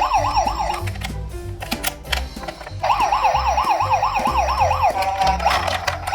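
Emergency-vehicle siren in fast yelp mode, its pitch sweeping up over and over about five times a second. It sounds in two bursts, one at the start and one from about three seconds in to nearly five seconds, over background music with a steady beat.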